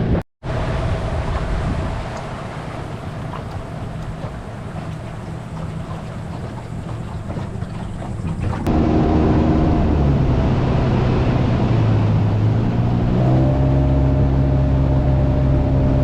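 Outboard motor of a small aluminium tinny running under way, with wind and water noise. After a brief dropout near the start, the engine sound steps up louder a little past halfway and turns into a steady, clearer hum that shifts pitch slightly a couple of times.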